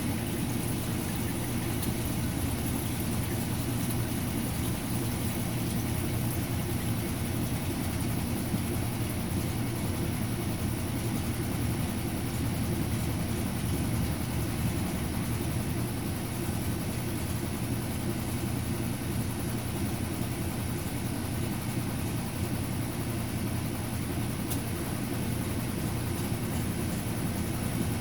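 Sump pump's electric motor running steadily, a low even hum.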